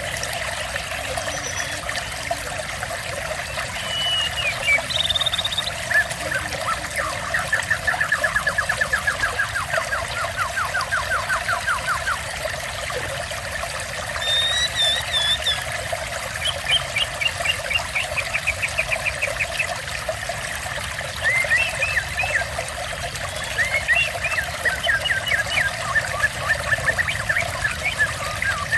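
Water trickling and pouring steadily, with a songbird singing over it in several phrases of fast rattling trills, high whistles and chirps.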